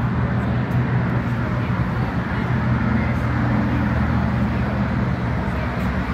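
A vehicle engine running steadily at idle: a constant low hum.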